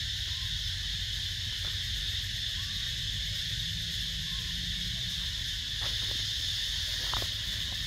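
Steady high-pitched insect drone, like cicadas or crickets, over a low rumble, with a few faint short chirps and a click late on.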